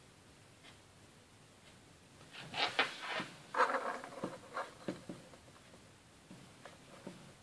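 Small plastic clicks and taps as a Playmobil lantern and figure are handled and the lantern is pushed into the figure's hand. The clicks begin about two and a half seconds in, come in a loose cluster for a few seconds, and a few fainter ticks follow near the end.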